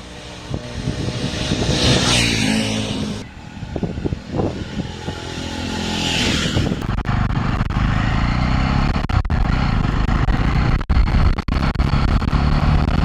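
Jawa 42 motorcycle's single-cylinder engine running through its stock exhaust with the dB killers still fitted, swelling twice in the first six seconds and then running steadily.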